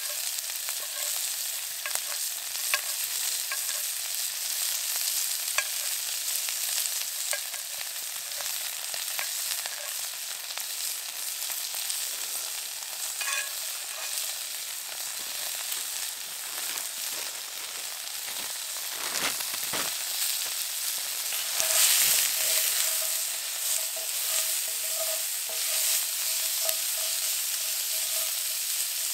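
Food frying in a pan: a steady sizzle with scattered small pops and crackles. About two-thirds of the way through the sizzle swells, and a thin steady whine sounds for several seconds.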